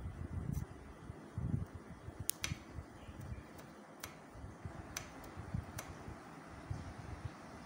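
Handling noise from a hand-held phone: irregular low rumbles, with scattered sharp clicks at uneven intervals.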